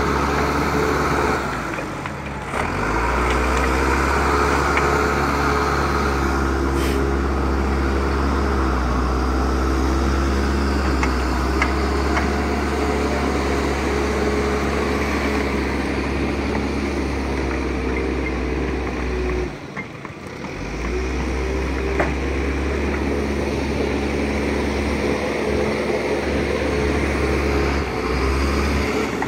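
Diesel engine and hydraulics of a tracked Hyundai excavator with a felling head, running steadily under load while it cuts and lays down a large tree. The engine note drops away briefly twice, once early and once about two-thirds of the way through.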